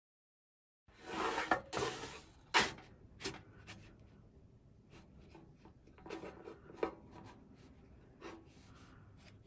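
Spatula scraping on a griddle as it is slid under a pancake: a run of short, faint scrapes starting about a second in, then a few fainter ones later.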